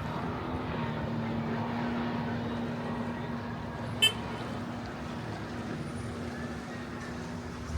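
An engine running steadily at a constant pitch, with a single short click about four seconds in.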